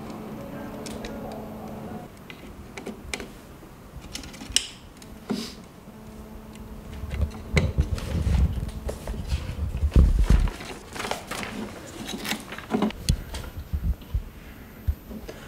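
Wire connectors being pushed into a replacement circuit board: scattered small clicks and handling noise, with heavier knocks and rumbling about halfway through.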